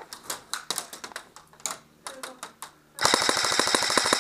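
Airsoft gunfire: scattered single pops and short strings of shots, then about three seconds in a loud, rapid full-auto burst of quick even clicks from an airsoft rifle.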